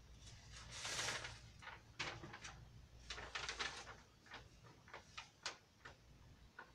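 Handling noises: a rustle about a second in, then a run of light clicks and short scrapes as small objects are moved about.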